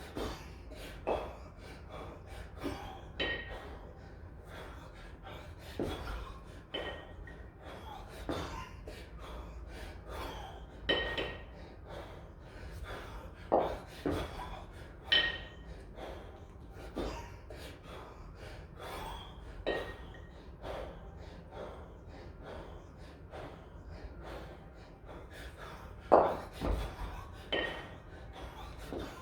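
A kettlebell lifter's heavy breathing: sharp gasps and forceful exhales every few seconds, with a few short ringing clinks.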